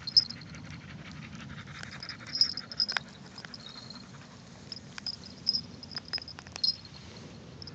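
Breathing close to the microphone, with high chirps repeating in short pulses and a few sharp clicks.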